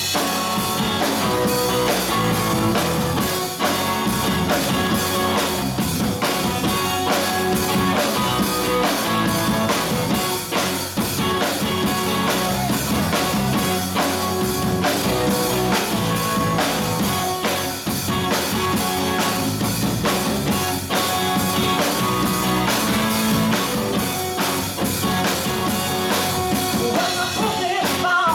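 Live rock band playing: electric guitar, electric bass and drum kit with a steady beat.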